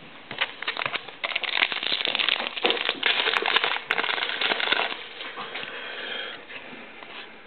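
Rustling and crinkling of a pack of trading cards being handled, with many small clicks, busiest from about one to five seconds in and then quieter.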